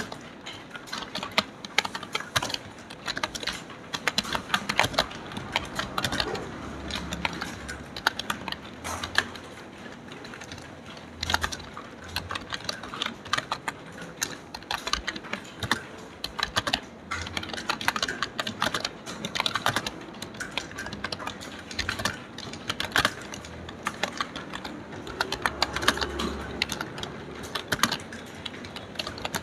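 Fast typing on a computer keyboard: a rapid, uneven stream of key clicks.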